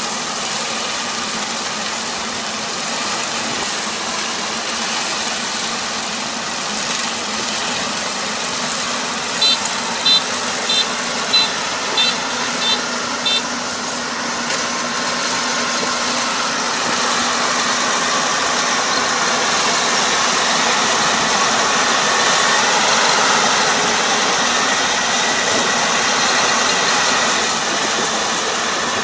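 Combine harvester running steadily, its engine and machinery a loud, even noise that swells slightly about halfway through. A string of about seven short, high beeps sounds from the machine about a third of the way in.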